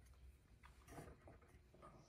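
Near silence: room tone with a faint low hum and a few very faint soft taps near the middle.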